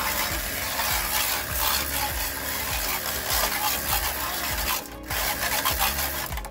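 Rough, rasping rubbing and scrubbing on a plastic car hubcap, in quick repeated strokes with a short break about five seconds in.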